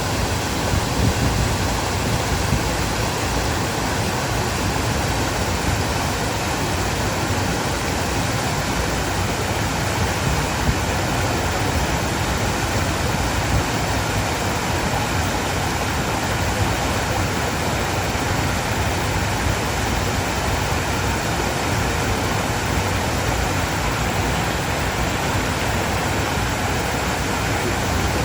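Steady rush of fast-flowing stream water tumbling over rocks and small cascades.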